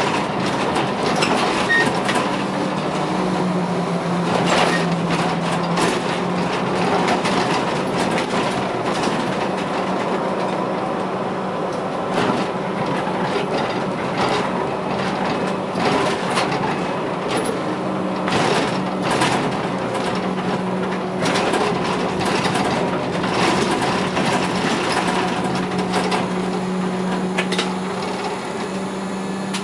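Škoda 15TrM trolleybus driving, heard from the cab: a steady electric hum with frequent knocks and rattles from the body and fittings over the road. It gets a little quieter near the end as the bus draws to a stop.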